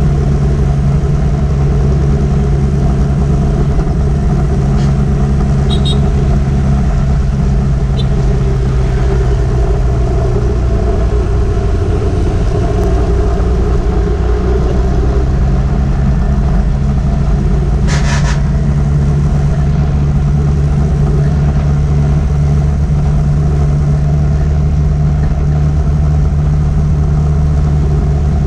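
Motorbike running at a steady cruising speed: a constant engine hum with road and riding noise, the level unchanging throughout. A brief, higher-pitched burst cuts in about two-thirds of the way through.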